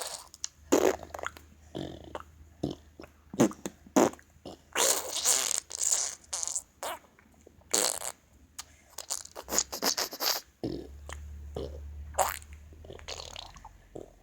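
A boy making imitation fart noises, one after another in an irregular string: many short pops and splutters with a few longer ones lasting about a second.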